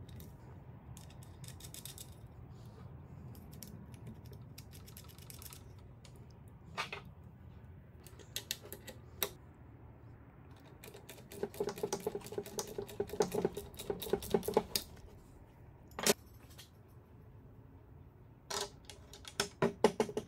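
Ratcheting combination wrench clicking in quick runs as it tightens the nuts that hold a chainsaw bar to a metal plate. Single sharp metal clicks and knocks from the parts being handled come in between.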